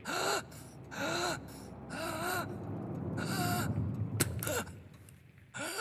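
A man gasping and groaning for breath, in four ragged breaths about a second apart, some of them voiced. A couple of sharp clicks come about four seconds in.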